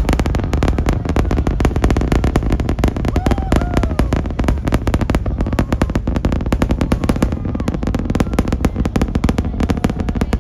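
Crackling rumble of the Super Heavy booster's 33 Raptor engines during Starship's ascent: a continuous rapid crackle over a deep, steady rumble.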